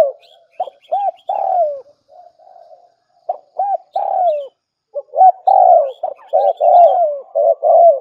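Spotted dove cooing: repeated phrases of short, pitched coo notes, some rising and falling, with a brief lull a little after two seconds before the phrases resume.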